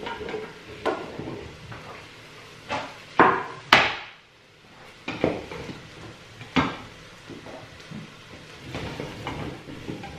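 Wooden chopping board and wooden spoon knocking against a stainless steel pot as chopped mushrooms and courgette are scraped in, then the spoon stirring the vegetables. A series of sharp knocks, the loudest two about three to four seconds in, with lighter clacks after.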